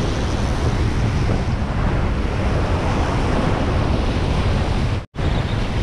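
Wind buffeting the microphone over a steady wash of surf, cutting out suddenly for a split second about five seconds in.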